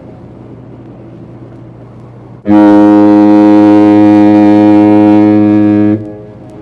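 Ship's horn sounding one long, deep, steady blast as a fog signal, starting about two and a half seconds in and cutting off abruptly some three and a half seconds later. A low steady hum runs underneath throughout.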